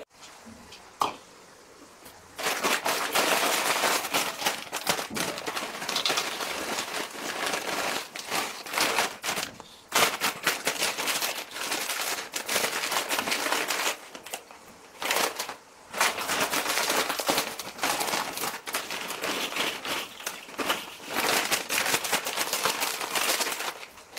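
Foil crisp bags crinkling and rustling as they are opened and handled, and crisps being poured from the bags into bowls, in long stretches with short pauses.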